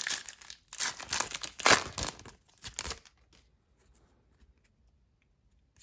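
Foil wrapper of a trading-card pack being torn open and crinkled, a dense run of tearing and rustling noise over about the first three seconds.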